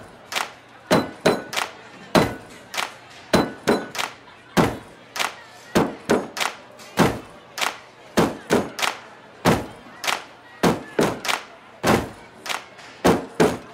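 Plastic cups and hands banging on cafeteria tables in an uneven rhythm of sharp thunks, about two hits a second, with no music under them.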